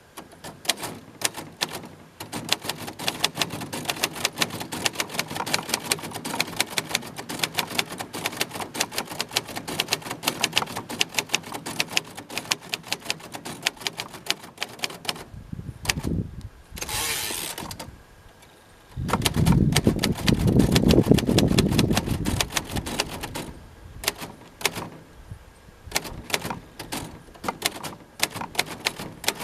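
1948 Royal Quiet De Luxe portable typewriter being typed on: rapid keystrokes clacking for about fifteen seconds, then two longer rushing, sliding sounds, the second louder and deeper, then typing again until the end.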